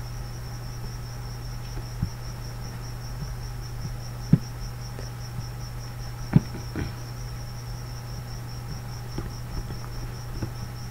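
Computer mouse clicking a few times, short sharp clicks over a steady low hum and a high, evenly pulsing chirp.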